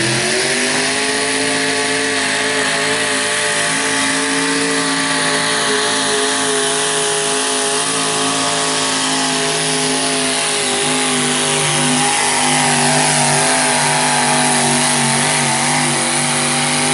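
Oliver 770 modified pulling tractor's engine running flat out at high, steady revs under full load as it drags a weight-transfer sled. The pitch wavers slightly near the end.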